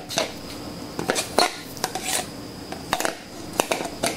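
Light clinks and taps of shock absorber parts being handled: the dust boot being moved from the old shock onto the new one, with a few irregular knocks.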